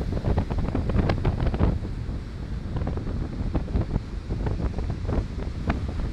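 Strong maestrale wind buffeting the microphone with a constant low rumble, over choppy surf breaking and washing in the shallows with frequent splashes of foam.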